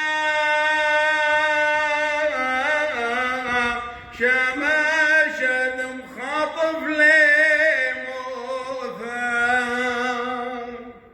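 Solo male voice chanting a Syriac liturgical hymn, with long held notes joined by ornamented turns, fading out near the end.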